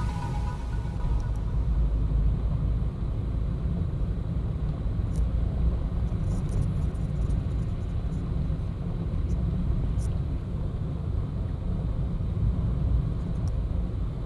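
Steady low rumble of a car's engine and tyres on the road, heard from inside the cabin while driving, with a couple of faint clicks.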